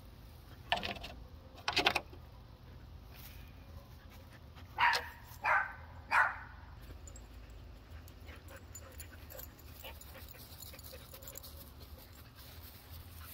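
Young German shepherd pawing and sniffing at the base of a wooden fence, with two short scratchy bursts about one and two seconds in. About five seconds in come three short, loud whines in quick succession, the dog excited by a rat behind the fence.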